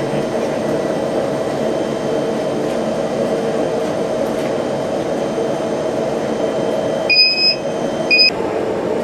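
Steady roar of a Dräger gas-fired fire training simulator burning behind its observation window. Two electronic beeps sound about seven and eight seconds in, the first longer than the second.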